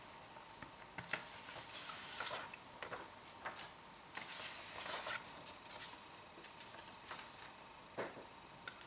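Faint swishes of a cloth wiping a chalkboard, with scattered light knocks, then light taps of chalk writing on the board near the end.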